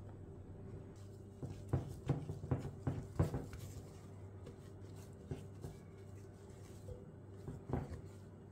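Silicone spatula stirring stiff biscotti dough in a glass mixing bowl: soft knocks and scrapes of the spatula against the glass, thickest between about one and a half and three and a half seconds in, with a few more later, over a faint steady hum.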